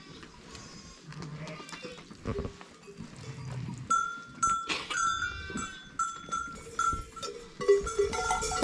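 Sheep bells ringing and clinking as the flock moves and feeds, starting about four seconds in and growing louder near the end, with a few low sheep bleats earlier.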